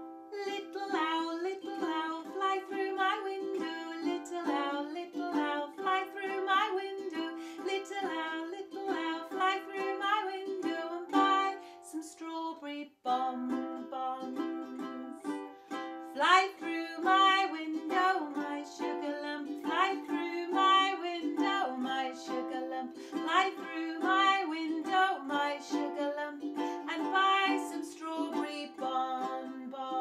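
A woman singing a children's song in a clear voice, accompanying herself on a strummed ukulele. The music breaks off briefly about twelve seconds in, then carries on.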